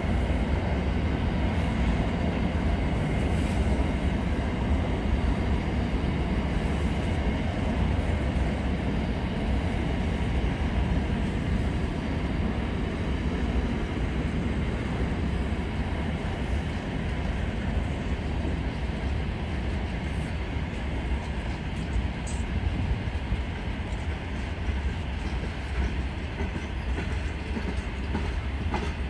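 Intermodal container freight train rolling past: a steady low rumble of the wagons on the rails, with occasional faint clicks from the wheels.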